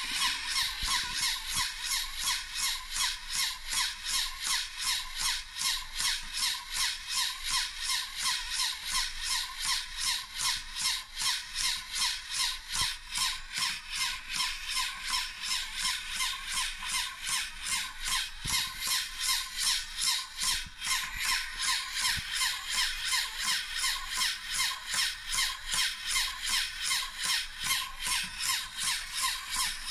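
A battery-powered LEGO Technic pneumatic rig starts up and runs. The motor-driven pumps and pneumatic engine give a steady mechanical whir with a rhythmic pulse of pumping and hissing air, about two to three beats a second.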